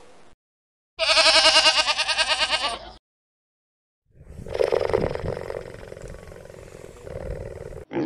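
Two animal calls with a pause between them. The first is a loud, pitched call with a fast quavering wobble, about two seconds long. The second is rougher and lower, about four seconds long, loudest at its start and then trailing off steadily.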